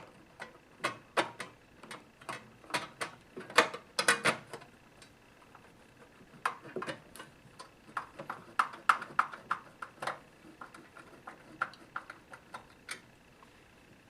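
Screwdriver driving the front cover screws back into a digital organ's cabinet: irregular sharp clicks and small knocks, one to three a second, that stop about a second before the end.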